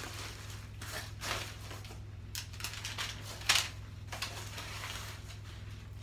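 Kraft paper and wood-wool packing straw rustling and crackling as a gift parcel is rummaged through and a paper-wrapped present is lifted out, in a run of short crackles with a sharper one about three and a half seconds in.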